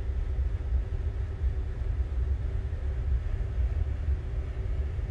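Steady low rumble of running machinery in a ship's engine room, with a faint steady hum above it.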